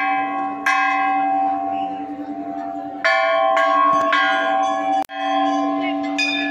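Large brass Hindu temple bell rung by hand, its clapper struck against the rim several times. Each stroke rings out over a steady humming tone that carries on between strokes. The ringing drops out for a moment about five seconds in.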